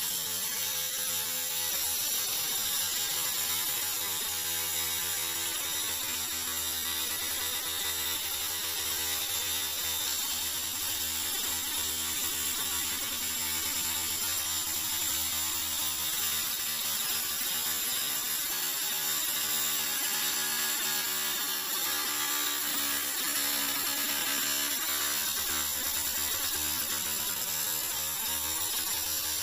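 Angle grinder cutting into an old metal rotor, a steady, continuous grinding with a wavering hum underneath.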